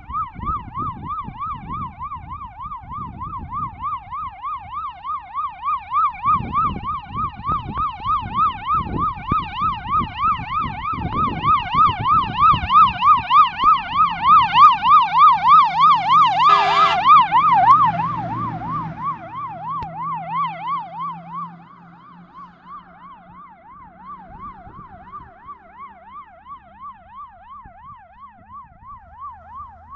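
Polish GCBA heavy fire engine's siren wailing rapidly up and down, about two to three sweeps a second, growing louder as the truck approaches and fading as it drives away. A short air-horn blast sounds as it passes, about two-thirds of the way in, with the engine rumble heard briefly.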